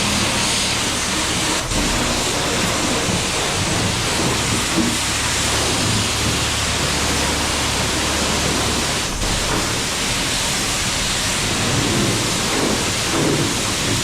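High-pressure spray wand at a self-serve car wash running, a steady hissing rush of water being blasted into a john boat. It starts suddenly at the outset, with a low steady hum beneath.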